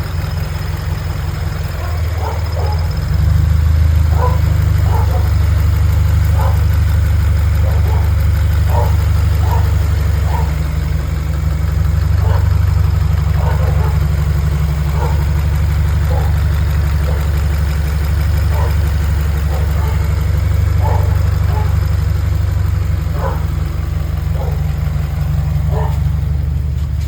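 Toyota 86's flat-four boxer engine idling steadily, a little louder from about three seconds in. The owner is listening for rod knock and is unsure whether it is there.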